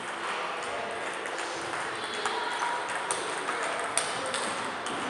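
Table tennis balls clicking off bats and tables, irregular ticks from several tables at once over a steady hall hubbub, with one sharper click about four seconds in.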